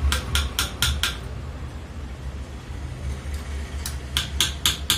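Light hammer taps, metal on metal, on the shaft and bearing of a ceiling-fan stator held in a vise, working the worn bearing loose. Five quick ringing taps in the first second, a pause of about three seconds, then another quick run of taps near the end, over a low steady hum.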